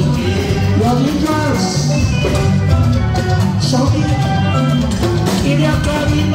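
Live band music with a steady beat from talking drums and electric guitars, with a singer on a microphone.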